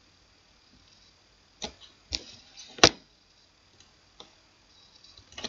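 A few sharp separate clicks over faint room tone, the loudest a little before three seconds in.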